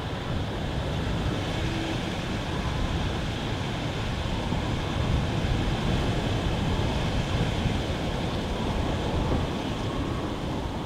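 A goods train hauled by two steam locomotives, an LNER J27 0-6-0 and a colliery tank engine, running steadily in the distance as a continuous rumble and hiss.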